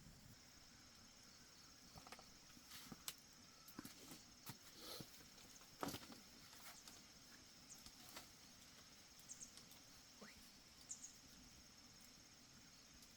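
Faint steady high-pitched chirring of insects, likely crickets, with scattered small clicks and knocks and a few short chirps.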